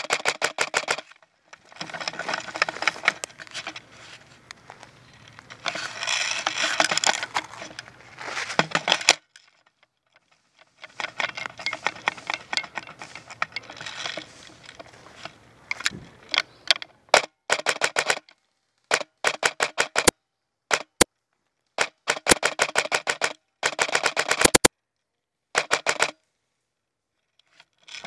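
Airsoft guns firing in rapid full-auto bursts: strings of sharp snapping clicks, with several pauses between bursts.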